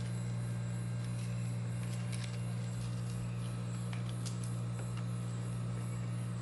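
A steady low hum, with faint, scattered crisp snaps of sliced onion rounds being pulled apart into rings by hand.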